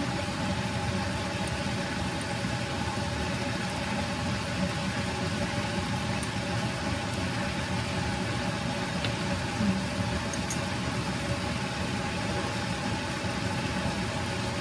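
Steady hum and hiss of a running fan motor, with a few faint tones held level and no change in speed.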